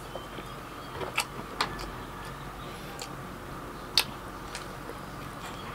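Close-up eating sounds: a person chewing, with a few sharp wet mouth clicks and smacks scattered through, over a steady background hiss.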